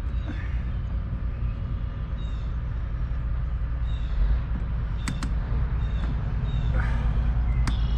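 Steady low outdoor rumble with a few sharp clicks of hand work on a hose clamp and air box, a pair about five seconds in and one near the end, and faint short chirps recurring about once a second.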